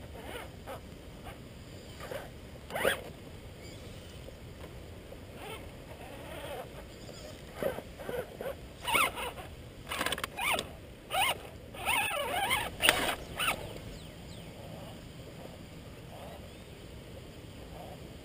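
Axial Wraith RC rock crawler driven in short throttle bursts, its electric drivetrain whirring and its tyres scrabbling and scraping on rock. The bursts come a few at a time early on and then in a dense run around the middle, as the crawler tips over in a rock gap.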